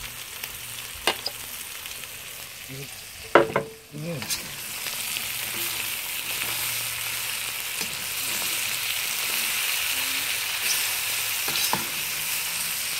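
Lamb and carrot stir-frying in a hot wok over a high gas flame, a steady sizzle that grows louder about four seconds in as the fresh carrot heats. A metal slotted spoon clinks against the wok a few times, loudest just before the sizzle swells.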